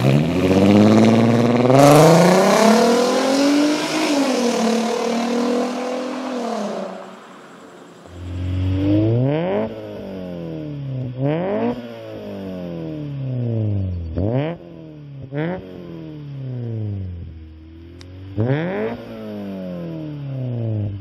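Volkswagen Golf R32's 3.2-litre VR6 revved hard through its exhaust, the pitch climbing, dipping and climbing again. About seven seconds in, a Honda Civic Si's B18C6 four-cylinder VTEC engine takes over at idle, with five quick throttle blips that each rise sharply and fall back.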